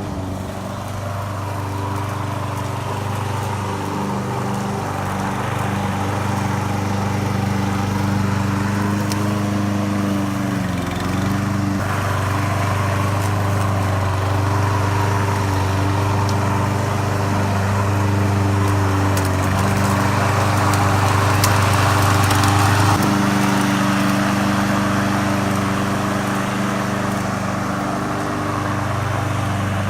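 Evatech Hybrid GOAT 22T remote-control slope mower running steadily, its engine and cutting deck making a constant hum with a rushing noise above it. The engine note bends briefly about eleven seconds in and shifts again about twenty-three seconds in.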